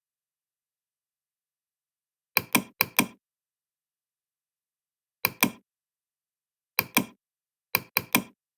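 Sharp knocks or taps in quick groups: four about two seconds in, then two, two and three more, with dead silence between them.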